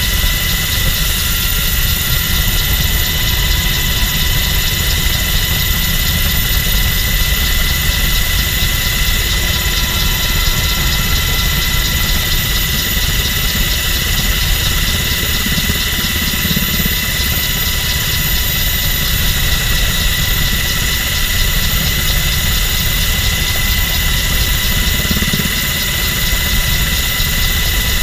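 MH-60 Jayhawk helicopter in flight, heard from inside its open cabin door: steady rotor and twin turboshaft engine noise with a constant high whine over a low rumble.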